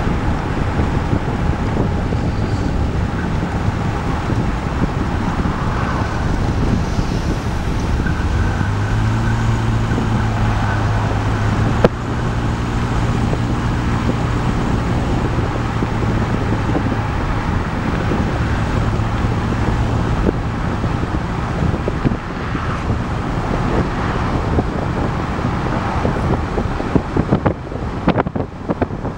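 Car driving at speed, steady road and engine noise with a low even hum through the middle stretch. Near the end the noise turns uneven as wind buffets the microphone.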